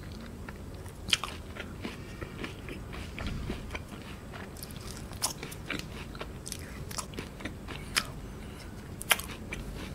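Close-up biting and chewing of a KitKat ice cream bar: irregular small crunches of its wafer-like coating and chocolate, with a few louder crisp bites scattered through.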